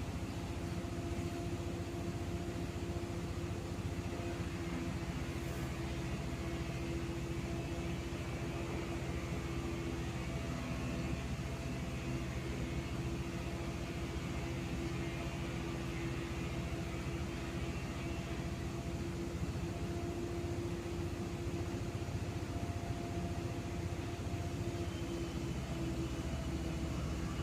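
Cosmos 56-CBA industrial ceiling fan running, with a steady motor hum over the rush of air from its blades.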